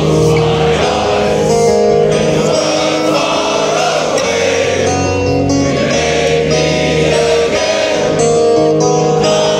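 Music with choir-like singing over sustained held chords, from a live concert.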